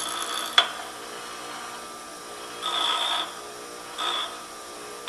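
Tool grinder motor running with a steady hum while a lathe tool is touched lightly against its diamond wheel twice, each contact a short grinding burst. There is a sharp click about half a second in.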